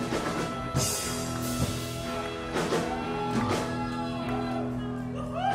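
Live band of upright double bass, electric guitar and drum kit holding a long chord, with several cymbal crashes.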